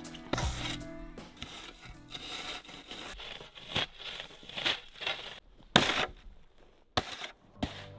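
Snow shovel scooping and scraping snow: a string of separate scrapes and swishes, the loudest about six seconds in.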